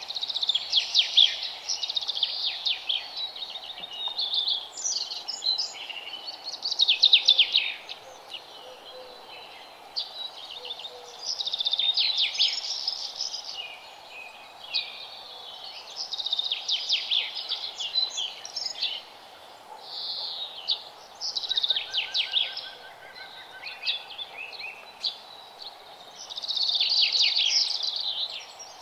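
A small bird singing over steady background noise, in repeated phrases of quick, high trilled notes every few seconds.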